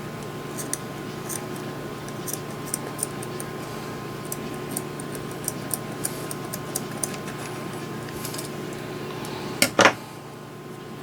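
Small metal hand tools and a thin cable handled on a workbench: scattered light clicks and ticks, then a louder double knock near the end, over a steady low electrical hum.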